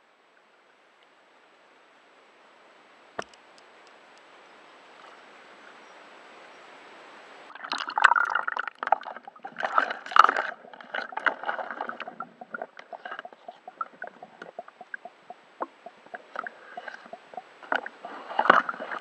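Water sloshing and gurgling around a camera at and just under the surface beside a kayak, with dense, irregular splashes and crackles starting about eight seconds in. Before that there is a faint rising hiss and a single click.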